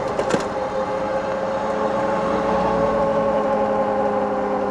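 A motor humming at one steady pitch, over a rushing haze of road noise.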